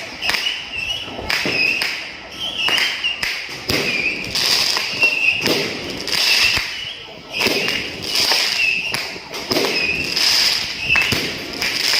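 New Year fireworks and firecrackers going off in rapid, irregular bangs, with a high wavering tone recurring about once a second behind them.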